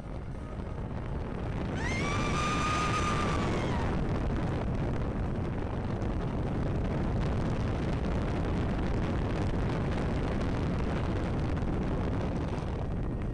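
Wind rush over the microphone and the rumble of the California Screamin' coaster train running fast on its steel track, loud and steady from about a second in. About two seconds in, a rider gives one high scream lasting about two seconds.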